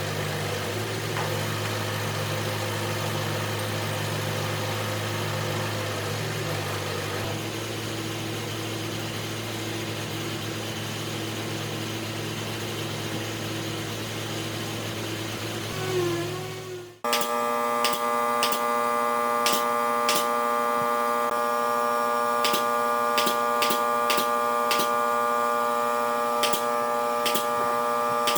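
A motor runs steadily at a low pitch. About two-thirds of the way through it cuts off abruptly, and a steady high whine from an electric power tool takes over, with scattered sharp clicks.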